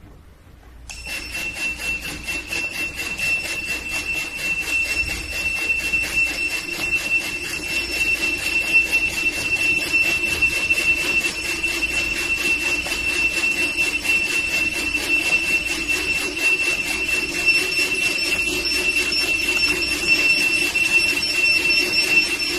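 Retekess T119 restaurant coaster pagers going off together on test, beeping with a steady high-pitched tone and buzzing from their vibration motors. The sound starts about a second in and keeps going.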